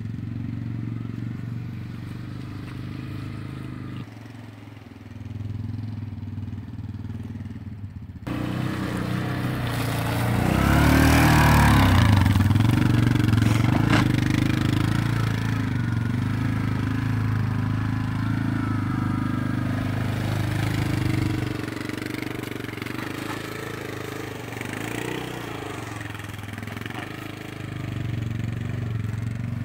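Four-wheeler ATV engine running as the quad drives through mud. It grows loudest as it passes a little over a third of the way in, then carries on steadily, with a single sharp click shortly after the peak.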